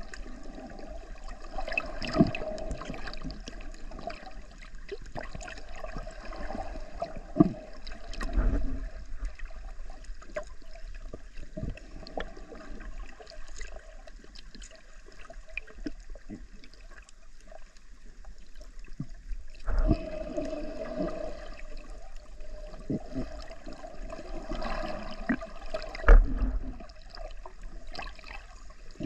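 Water noise picked up by a camera held underwater, with several sharp knocks, the loudest about 26 seconds in.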